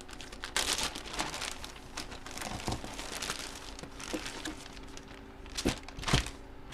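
Plastic packaging crinkling and rustling as it is handled, with a couple of sharp knocks near the end.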